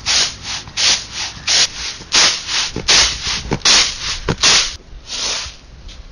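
Pearl millet grain sliding and rustling in a woven bamboo winnowing tray as it is shaken and tossed to winnow out the chaff: a run of hissing swishes, about two a second, that stops near the end.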